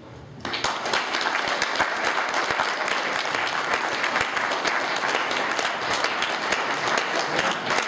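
Audience applauding, the clapping starting about half a second in and going on steadily.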